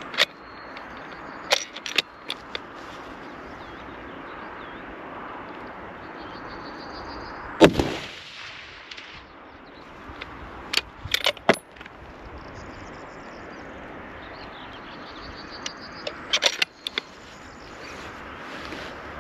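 A single rifle shot from a Tikka T3X TAC A1 bolt-action in .308 Winchester, loud and echoing, about seven and a half seconds in. Sharp metallic clicks and clacks come before and after it in short clusters, as from the bolt being worked. A steady hiss runs underneath.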